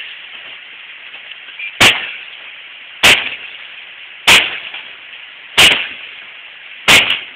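Five loud, evenly spaced blows, about one every 1.3 seconds, each a sharp bang with a short ringing tail: an old wall air-conditioning unit being struck to knock it loose from the wall.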